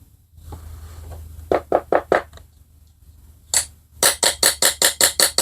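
A run of short, sharp bursts while the emulsion tube is being worked out of a Tecumseh carburetor: four in quick succession, one on its own, then about eight more, fast. A low steady hum sits underneath.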